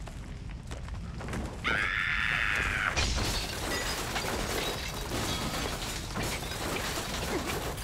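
Recreated cartoon sound effects: a short, high-pitched squeal about two seconds in, then a long run of cracking and shattering ice over a low rumble as ice spikes burst from a glacier.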